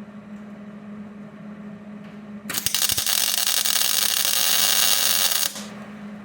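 Welding arc crackling and hissing for about three seconds, starting a couple of seconds in and cutting off sharply, as a nut is welded onto a broken head-bolt stud sitting flush in the block. A steady low hum runs underneath.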